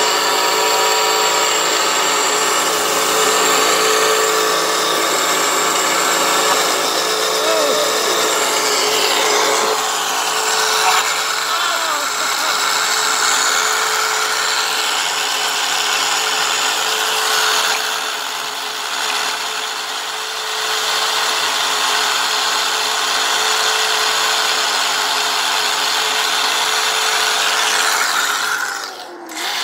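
6S LiPo electric RC car doing a burnout: the motor whines at high speed while the front line lock holds the front wheels and the rear tyres spin against the ground. The sound holds steady, eases briefly around twenty seconds in, and cuts off suddenly near the end.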